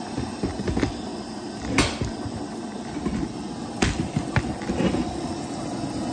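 Gas burner running on full flame under a pot of sugar syrup boiling toward about 250°F for bee fondant: a steady low rumble. A few sharp clicks and knocks sound over it, the loudest about two seconds in and another near four seconds.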